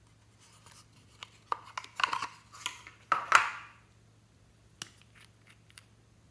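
Hands handling small objects: clicks and short scraping rustles, loudest about two to three and a half seconds in. Near the end come a few light clicks as the black cap is twisted off a small plastic cosmetic tube.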